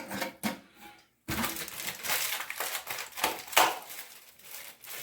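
Plastic packaging of a new Fluidmaster toilet fill valve crinkling and crackling as it is handled, after a brief silence about a second in.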